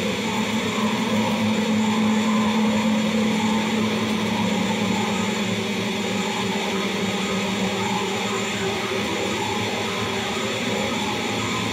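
Harsh noise music: a dense, steady wall of distorted electric-guitar noise through effects, with a held low drone underneath that is strongest in the first few seconds.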